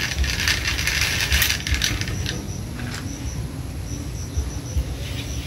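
Rope running through the sheaves of a six-pulley block and tackle as a 30 lb load is lowered, the pulleys turning with a mechanical rattle. It is busiest in the first two seconds, then quieter.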